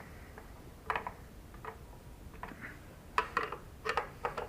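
Scattered light clicks and clacks of tools and small parts being handled, in a cluster near the end.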